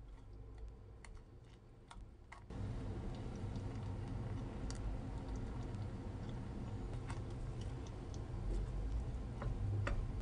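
Spoon and spatula clicking and tapping against a stainless steel saucepan while blueberries are mashed and stirred, a few scattered ticks at a time. About two and a half seconds in, a steady low hum comes in underneath.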